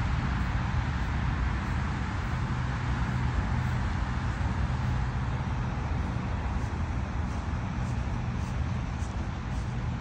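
Steady outdoor city noise: a low rumble of road traffic with wind on the microphone, and no single event standing out.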